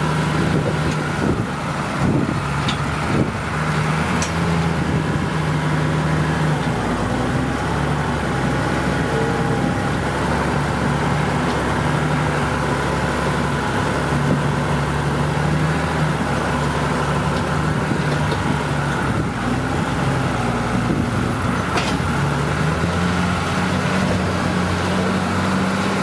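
New Holland TM150 tractor's diesel engine working hard as it pushes a front snow plough through drifts, heard from inside the cab. The engine note shifts a few times and rises near the end.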